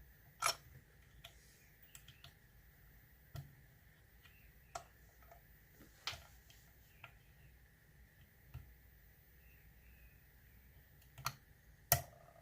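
Small, sharp metallic clicks at irregular intervals from a lock pick and tension wrench working the pins of an ASSA oval euro cylinder. The clicks are loudest about half a second in and near the end.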